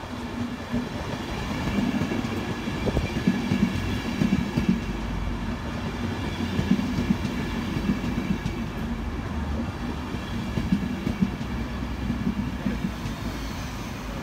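LNER InterCity 225 train, with Mark 4 coaches behind a Driving Van Trailer, running past along a platform. A steady rumble and hum carry a rapid, irregular clatter of wheels over the rail joints, with a faint high whine above it; it swells about a second in and stays loud.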